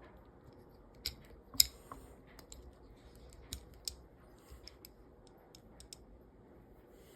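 Sharp metallic clicks and taps of a Smith & Wesson Bodyguard 380 pistol's parts being handled and fitted during reassembly. The loudest click comes about a second and a half in, followed by a few more and then a run of lighter ticks.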